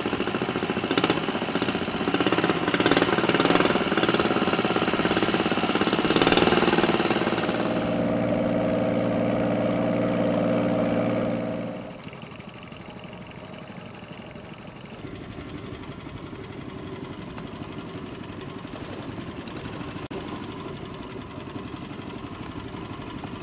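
A small long-tail boat engine running with a knocking beat, then holding a steady tone. About halfway through it gives way to a much quieter, even wash of sound.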